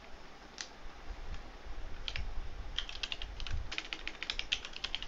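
Typing on a computer keyboard: a couple of single keystrokes, then a quick run of keystrokes in the second half.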